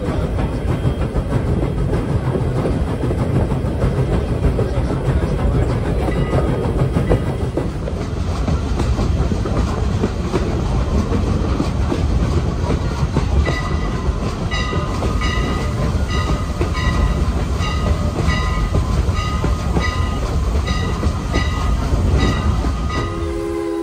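Steam train running, heard from an open passenger car: a steady rumble of the cars with clickety-clack on the rails. From about halfway through, the locomotive's bell rings steadily at about one and a half strokes a second, and right at the end its steam whistle starts to blow.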